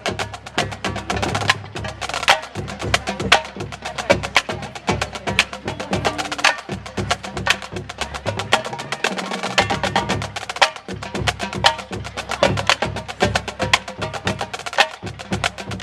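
Massed high school marching bands playing together, with a drumline beating a fast, steady cadence over sustained low brass notes.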